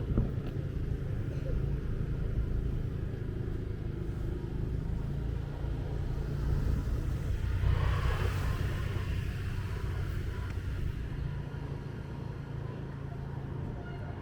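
Motorbike engine running steadily at low speed. A louder rush of traffic noise swells and fades around the middle.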